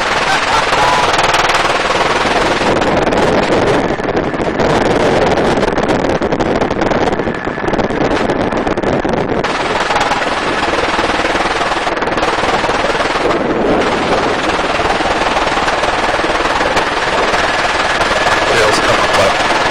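Helicopter rotor and engine noise, loud and steady, with a fast, even chop from the blades as the aircraft descends toward its landing pad.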